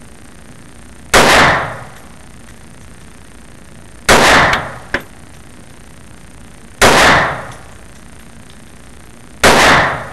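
S&W BodyGuard .380 pocket pistol firing four single shots of Buffalo Bore 95-grain full metal jacket rounds, spaced about three seconds apart, each shot ringing out for about half a second. A short sharp tick comes just under a second after the second shot.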